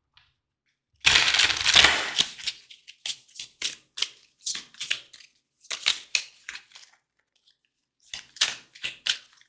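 Tarot cards being handled and shuffled. A burst of shuffling comes about a second in, then a run of short card clicks and snaps, about two or three a second. They pause briefly and start again near the end.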